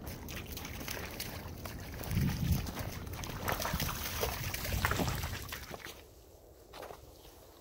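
Footsteps in snow with scattered rustling, and gusts of wind buffeting the microphone about two seconds in and again near five seconds; it quiets after about six seconds.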